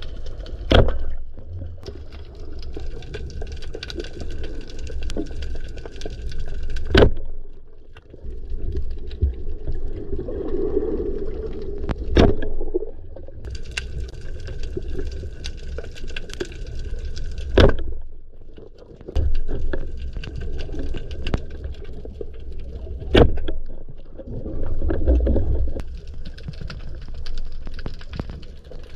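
Water noise picked up by a diving camera, with a sharp click about every five and a half seconds.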